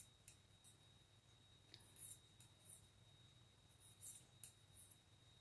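Faint, irregular clicks and rustles of knitting needles and yarn as a purl row is worked, a few every second.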